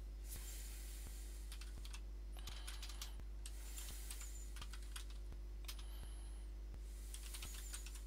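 Computer keyboard typing in three short bursts of keystrokes over a steady low electrical hum.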